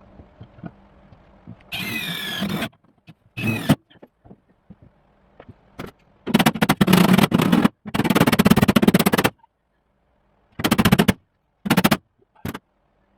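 Several short bursts of a power tool working sheet metal, with quiet gaps between. The first burst carries a motor whine that glides in pitch, and the longer bursts in the middle have a fast, even rattle.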